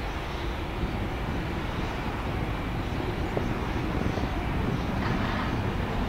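Boeing 757 airliner's jet engines running at low taxi power as it rolls past: a steady, even jet noise with a deep low end.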